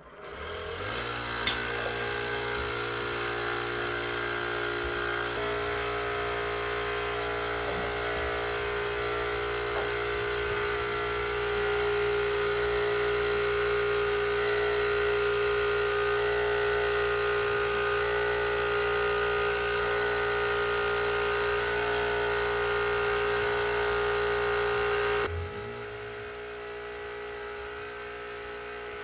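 A small motor starts up and runs steadily with a droning whine, then drops to a quieter hum about 25 seconds in.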